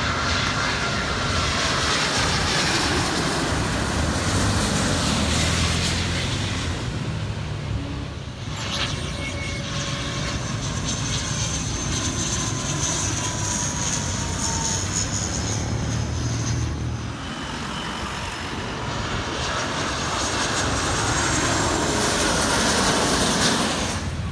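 Jet airliner flying low overhead: a loud, steady engine noise with faint whining tones that slowly fall in pitch. The sound breaks off abruptly about eight seconds in and picks up again.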